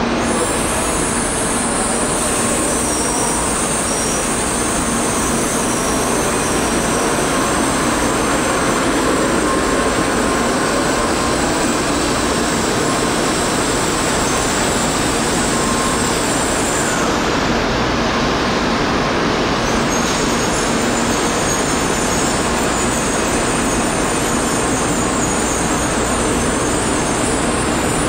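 A Tokaido Shinkansen bullet train running along the station track, heard as a loud, steady rushing noise.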